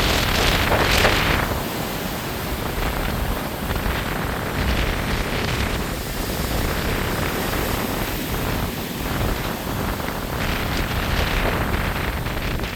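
Strong gusty wind buffeting the microphone with a low rumble, over the rush of heavy surf; the rushing swells loudest in the first second and a half and again twice later.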